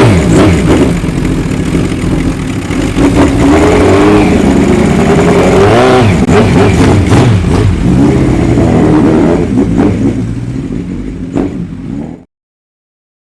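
Classic air-cooled racing motorcycle engine running loud and being revved in repeated throttle blips, its pitch rising and falling, with a mechanical clatter. It cuts off suddenly near the end.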